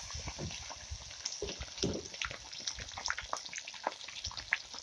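Fish deep-frying in a kadai of hot oil: a steady sizzle with scattered pops and crackles. Along with it comes the wet sloshing of a hand working fish pieces through the spice batter.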